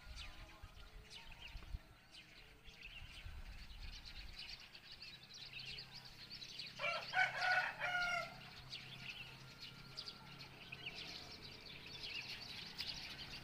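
A rooster crows once, about seven seconds in, a single call lasting over a second. Small birds chirp throughout.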